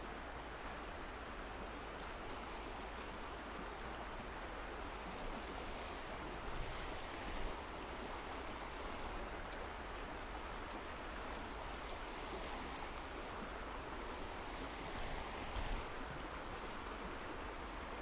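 Steady rush of a small river flowing over stones, with an even high hiss above it.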